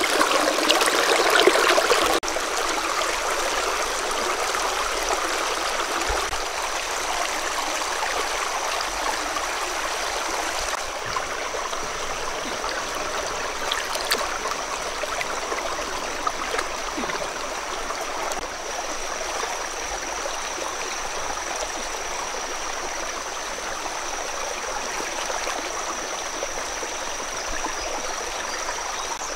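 Shallow stream water running and splashing over rocks, a steady rush that is louder for the first two seconds.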